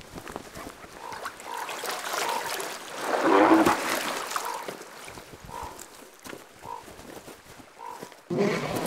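Two grizzly bears fighting, growling and roaring at each other. The growling is loudest about three and a half seconds in, dies down, then breaks out again suddenly near the end.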